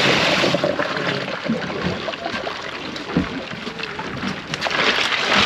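Ice pouring out of a plastic bucket into a cooler, loudest at the start and thinning out. Then ice shifting as fish are pushed down into it, building again near the end.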